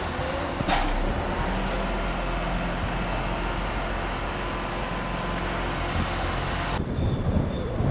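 Class 230 D-Train diesel multiple unit running slowly past on curved track, a steady low hum from its underfloor diesel engines under the rolling noise, with one sharp clank about a second in.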